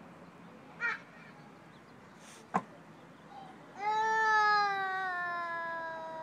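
A toddler's high voice: a short squeak about a second in, then a long, loud, high-pitched "aaah" call from a little past halfway, held and slowly falling in pitch. Between them there is a single sharp click.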